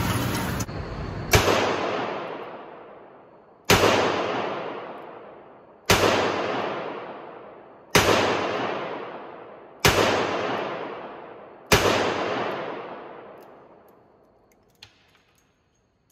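Smith & Wesson Model 10-5 .38 Special revolver fired six times double action, about two seconds apart, emptying the cylinder. Each shot echoes and dies away in the indoor range.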